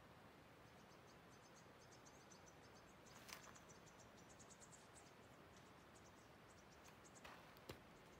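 Near silence: quiet outdoor ambience with faint, high-pitched chirping repeated through most of it, and a few soft clicks about three seconds in and near the end.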